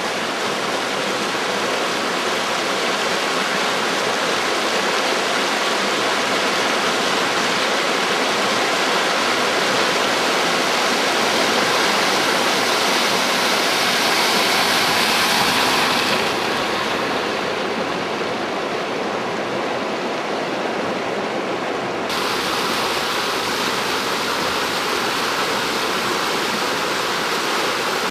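Shallow river water rushing steadily over a ford. It is loudest through the middle, while a Land Rover Discovery splashes through the crossing, then turns duller, and changes abruptly near the end.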